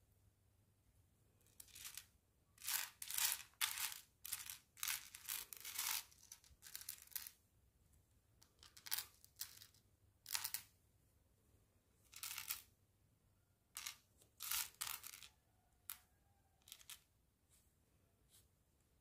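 Tiny plastic mini building bricks rattling and clicking against one another as hands pick and sort through a loose pile, in irregular short bursts that thin out near the end.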